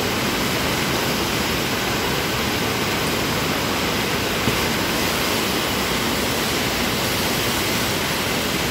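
Steady, loud rush of pumped water racing up the slope of a surf-simulator (standing-wave) ride.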